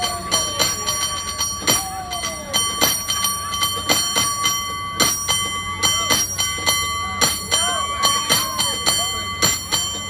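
San Francisco cable car bell rung by hand with its rope in a rapid, rhythmic run of strikes, several a second. The bell's tone rings on between the strikes.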